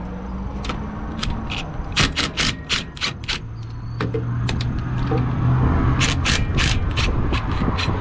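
DeWalt 20V cordless impact driver hammering on a nut in short rattling bursts: a run of them about two seconds in and another about six seconds in, over a steady low hum.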